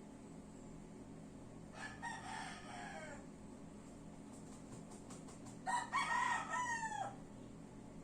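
A rooster crowing twice, the second crow louder, each ending in a falling drawn-out note.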